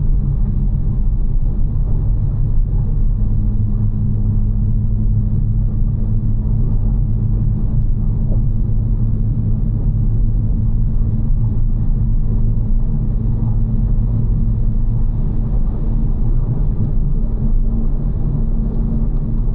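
BMW G82 M4's twin-turbo straight-six running at a steady drone under tyre and road noise while driving at an even pace.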